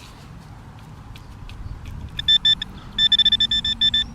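Metal detector pinpointer beeping in quick runs of short pulses at one high pitch, about seven or eight a second, starting about two seconds in: it is close to a metal target in the hole.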